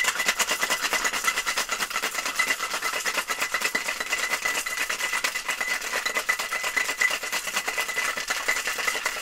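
Ice cubes rattling inside a metal two-tin Boston cocktail shaker as a drink is shaken hard, a dense continuous clatter of ice against tin.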